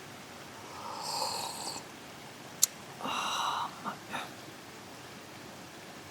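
Two slurping sips of a hot drink about two seconds apart, with a sharp click between them and a couple of light taps after the second sip.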